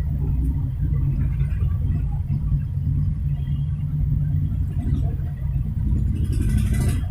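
A steady low rumble, with a short rustling hiss near the end.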